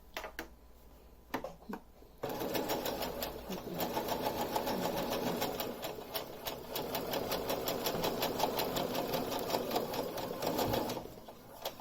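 Brother domestic sewing machine stitching a test seam at a steady fast pace, the needle strokes repeating evenly, after a few separate clicks at the start; it stops near the end.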